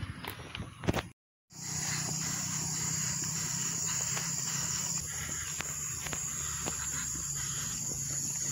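Outdoor ambience on a rural road: a steady high-pitched insect drone with the faint steps of someone walking. It starts after a moment of dead silence about a second in.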